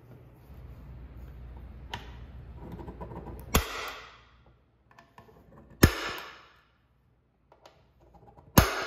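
Spring-loaded automatic center punch snapping three times, a couple of seconds apart, marking pilot-hole spots on an ABS plastic electrical box. Each snap is a sharp crack with a short ring after it, and some faint rubbing of the tool on the box comes before the first.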